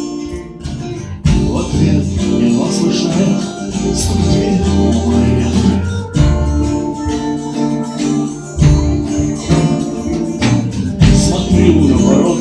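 A live band playing a guitar-led instrumental passage, with held low notes that change every couple of seconds and sharp hits on the beat.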